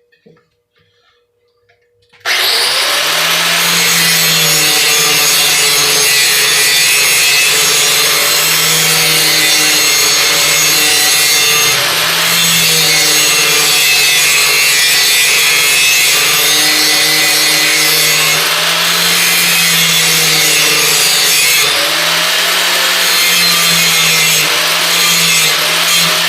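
Electric grinder starting about two seconds in and grinding the steel edge of a brush hog blade, a loud steady grinding hiss over the motor's hum. The motor's pitch sags and recovers again and again as it works back and forth along the edge.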